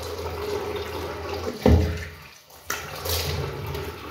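Tap water running and splashing into a sink, with sudden louder splashes about one and a half and two and a half seconds in.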